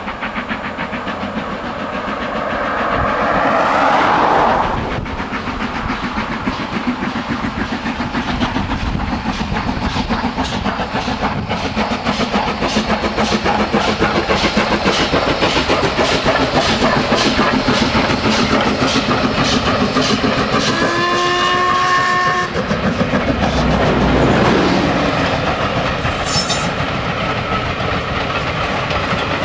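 Steam locomotive working past with a steady, rapid beat of exhaust and wheels on rail. About two-thirds of the way through comes one short whistle blast.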